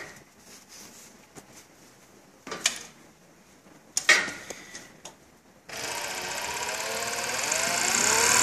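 Juki MF-7523 coverstitch machine starting up about two-thirds of the way in and running fast, rising in pitch as it speeds up. Before that, a couple of sharp clicks.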